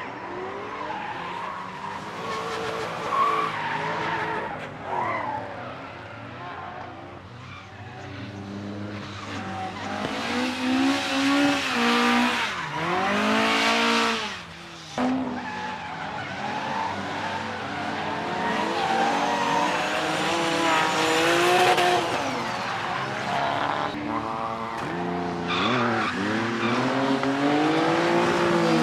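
Retro cars drifting on a race track: engines revving up and down hard as the cars slide, with tyres squealing and skidding. The level drops briefly about halfway through, then the engines climb again.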